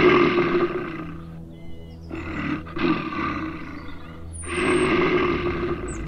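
Roaring for a cartoon bear: three long, rough roars, over soft background music.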